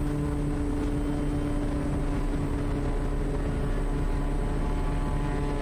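Quest Kodiak's Pratt & Whitney PT6A turboprop engine and propeller running steadily at takeoff power during the takeoff roll, an even drone with a constant hum.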